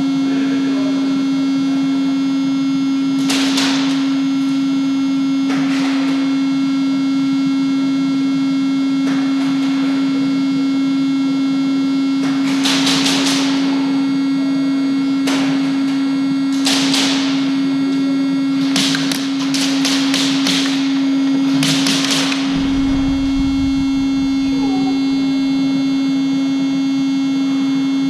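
Anti-fog fan in airsoft goggles buzzing as a steady hum close to the microphone. Several short noisy bursts break in over it, grouped in the second half.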